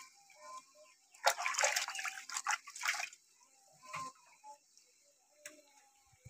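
Hands washing raw chicken pieces in a metal bucket of water: water sloshing and splashing, loudest for about two seconds starting a little over a second in, then a single knock and a few drips.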